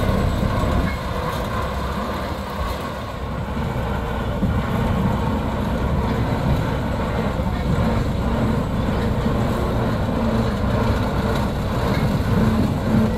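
Ruston 48 diesel shunting locomotive's engine running steadily.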